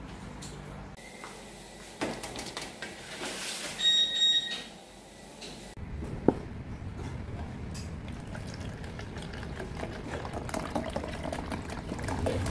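A brief electronic beep from a deck oven's control panel about four seconds in. Later, after a single knock, milk pours from a carton into a plastic measuring jug in the last few seconds.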